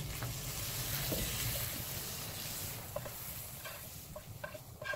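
Metal turner scraping hot taco beef mince out of a frying pan into a cast iron pot. There is a soft sizzling hiss for the first couple of seconds, then a few light clinks and scrapes in the second half.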